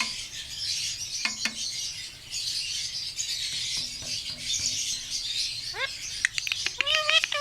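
Pet green parrot calling with short whistled notes that rise in pitch, a few times in the last second and a half, over a steady high-pitched chirring background.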